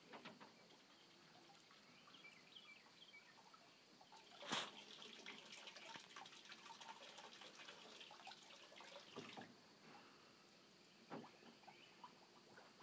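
Near silence: faint background ambience with scattered small clicks and short high chirps, broken by one sharp knock about four and a half seconds in and a couple of softer knocks later.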